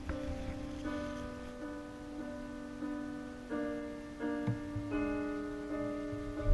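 Slow background piano music, its notes and chords changing about once a second.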